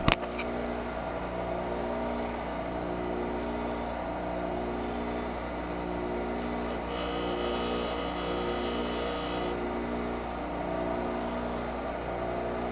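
Bench grinder running with a steady motor hum. From about seven seconds in, a small washer is held against the grinding wheel for roughly two and a half seconds, adding a hissing grind over the hum.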